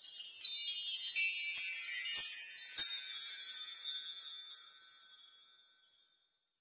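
Twinkling sparkle sound effect: a shimmer of many high, bell-like chimes that swells over the first few seconds and fades away by about six seconds in.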